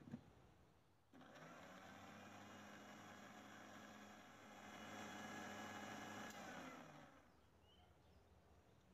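Electric blender (mixer-grinder) motor running, whipping egg, garlic and oil into a thick emulsified sauce. A light knock comes first. The motor starts about a second in, runs steadily for about six seconds, gets louder partway through, then winds down near the end.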